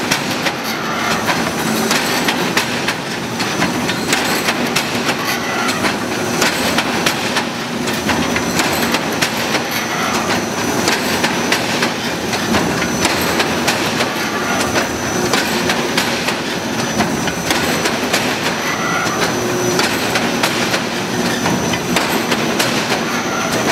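Gabion (hexagonal wire mesh) weaving machine running: a steady, dense metallic clatter of fast clicks, with a faint high whine.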